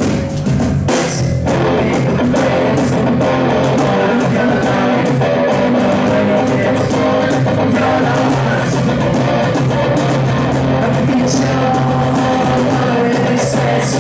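Live rock band playing loud, with electric guitar, bass guitar and drum kit going throughout.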